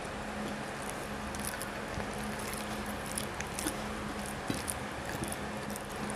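Chewing, and soft wet squishing as boiled vegetables and rice are mashed and mixed by hand on a plate, with scattered small clicks, over a steady low hum.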